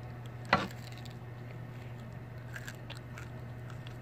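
A candy-coated chocolate Smartie bitten and crunched between the teeth: one sharp crunch about half a second in, then a few faint chewing crunches.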